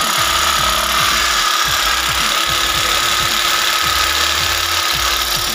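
Power tool motor running at full speed with a steady whine and hiss, winding down near the end, over background music with a steady beat.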